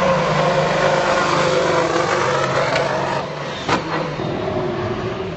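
Formula 1 car's turbocharged V6 hybrid engine running at a steady, held pitch as the car drives along the pit lane, fading about three seconds in. A sharp click comes just before four seconds in.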